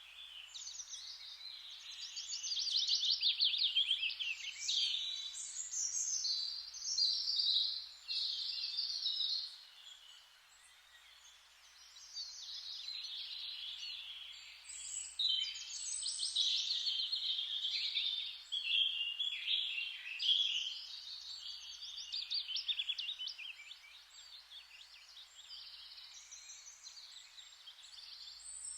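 Forest ambience: a dense chorus of songbirds chirping and trilling continuously, swelling and fading, over a steady rustling hiss.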